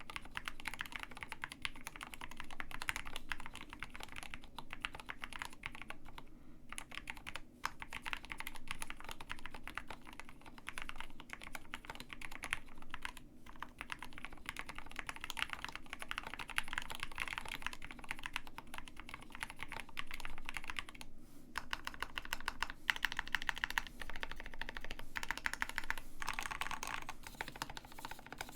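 Steady typing on a KBD67 Lite R2 custom mechanical keyboard with Gateron Black Ink V2 linear switches: a fast, continuous run of keystroke clacks, with a few short pauses.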